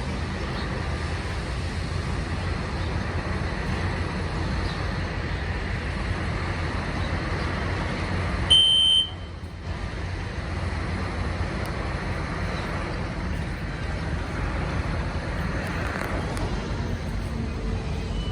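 System Sensor SpectrAlert Classic fire alarm horn giving one short, loud, high-pitched blast about halfway through, over steady street traffic noise. The horn is sounding for a sprinkler alarm, blasting about every 11 seconds.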